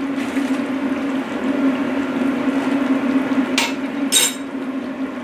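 A big stockpot of curry simmering and bubbling over a steady low hum. Two brief sharp clatters come about half a second apart near the end.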